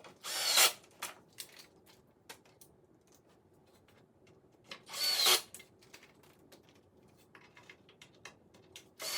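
Ryobi cordless drill with a hex bit driving hex screws into acacia wood in three short bursts, about four to five seconds apart, with small clicks of parts being handled in between.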